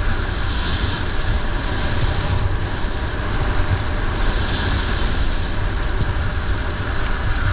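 A luge sliding fast down a packed-snow track at about 30 mph: a steady rushing hiss from the runners on the snow, with heavy wind buffeting on the microphone as a low rumble.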